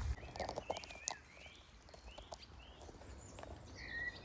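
Small birds chirping with short, rising and falling calls, and a few crackling clicks of footsteps through undergrowth in the first second.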